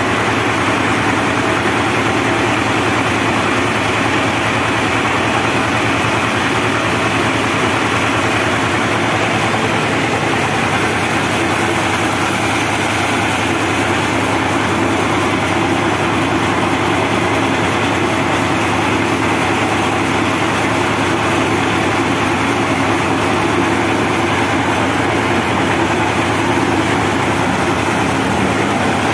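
Diesel engine driving a homemade band sawmill, running steadily at a constant speed without load while a teak log is loaded and positioned on the carriage.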